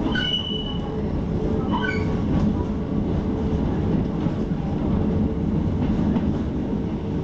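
Hakone Tozan Railway electric train running, heard inside the car as a steady rumble of wheels on rail. Short high wheel squeals come near the start and again about two seconds in.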